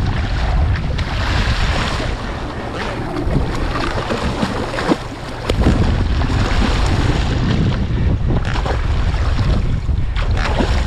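Wind buffeting the microphone over sea water splashing and slapping against the side of a boat, churned by a hooked marlin at the surface alongside the hull. A brief lull comes about five seconds in.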